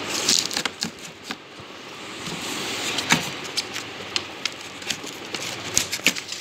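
Cardboard packaging of a boxed kitchen appliance being handled and opened: rustling and scraping of a cardboard insert against foam packing, broken by many short sharp clicks and taps.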